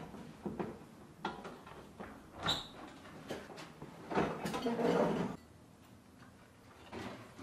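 Kitchen handling sounds of cookware being moved: scattered light knocks and clicks, a short ringing clink a few seconds in, and a longer scraping, rustling stretch that cuts off abruptly just past halfway.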